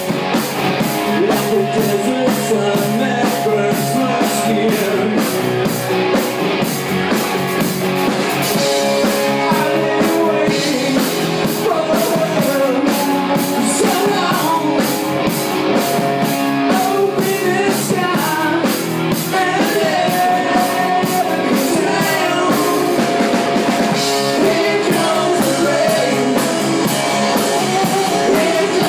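Live rock band playing: electric guitar, electric bass and drum kit with a steady cymbal beat, and a male voice singing lead over them.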